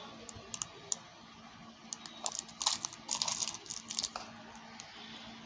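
Small metal jewellery charms in thin plastic packets being handled: a run of light clicks and crinkles, busiest from about two to four seconds in.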